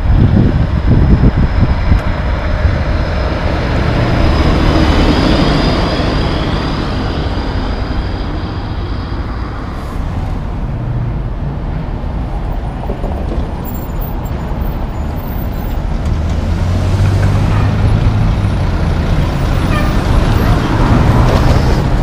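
Road traffic with heavy diesel trucks passing, and wind buffeting the microphone in the first couple of seconds. In the last several seconds a truck's diesel engine grows louder as it draws near.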